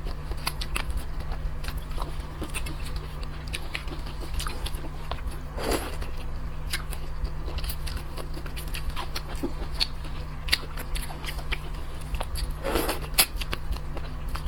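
Close-up eating sounds: irregular sharp clicks and crunches of biting and chewing, with a couple of louder, longer wet noises about six seconds in and near the end, over a steady low hum.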